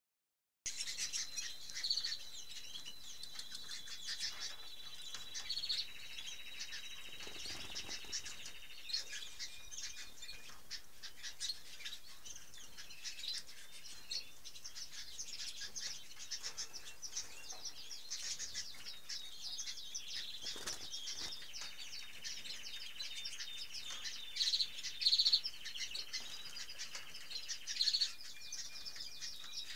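Several domestic canaries chirping and singing in a cage: a busy stream of short high chirps, with a long held whistle near the start and long rolling trills twice.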